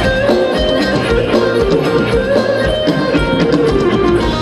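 Live band playing upbeat Thai ramwong dance music, with guitar and a steady drum beat.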